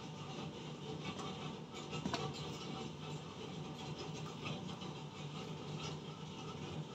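Spatula scraping and tapping lightly around an empty wok, with scattered small scrapes and clicks and one sharper click about two seconds in, over a steady low hum.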